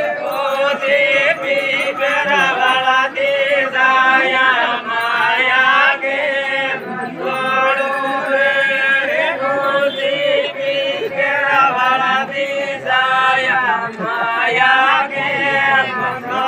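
Adivasi folk song sung by a group of voices in repeated phrases, with a steady held note beneath.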